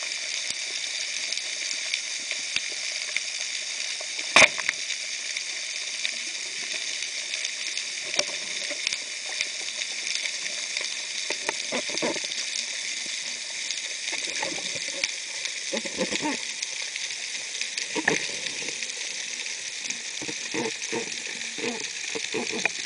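Underwater ambience picked up by a camera in its waterproof housing: a steady crackling hiss with scattered faint clicks. One sharp click stands out about four and a half seconds in, and muffled low swishes and knocks come and go in the second half.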